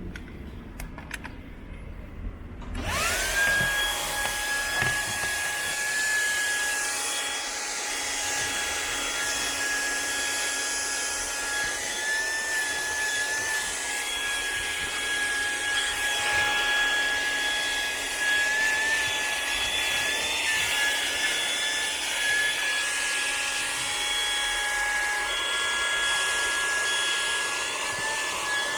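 SEHENTOOLS CV108 12-volt car vacuum cleaner switched on about three seconds in, its motor spinning up fast to a steady high whine over a rush of air. The whine wavers briefly a few times.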